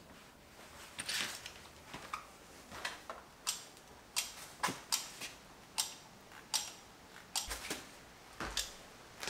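A hand-held caulking gun being squeezed along the wall, its trigger and ratchet giving a run of sharp clicks, about two a second.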